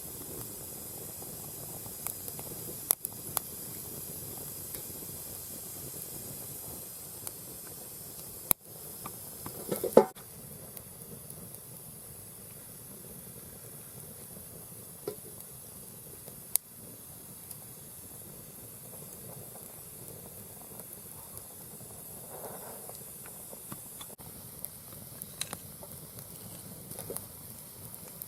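Mixed hardwood logs burning in a round fire pit: a steady hiss with scattered pops and crackles, and one louder crack about ten seconds in.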